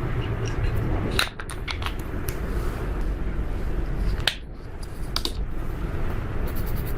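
Slime being squeezed and mixed by hand: a steady low squelching crackle, broken by sharp sticky clicks a few times.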